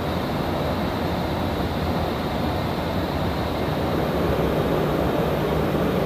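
Steady rushing noise of a refuelling tanker in flight, heard from inside the boom operator's compartment. Engine and airflow noise run unbroken with no distinct events, getting a little louder about two-thirds of the way in.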